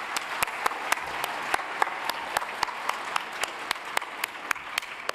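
Audience applauding, with many sharp individual claps standing out, dying away near the end.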